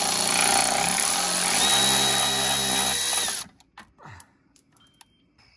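Milwaukee Fuel cordless electric ratchet running, backing out a T25 Torx bolt from an automatic transmission cooler line fitting. It runs steadily for about three and a half seconds, its pitch shifts about halfway through, and then it stops.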